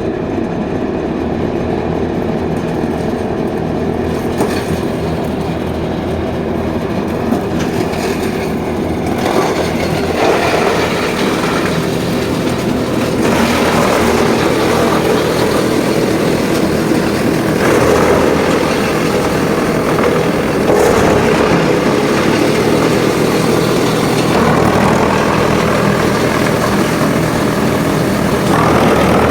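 Wood drum chipper running with a steady low hum, with louder, harsher grinding stretches that recur every few seconds from about a third of the way in as wood goes through the drum.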